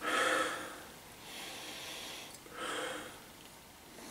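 A man sniffing a glass of beer for its aroma, with three long, noisy breaths through the nose, the first the loudest.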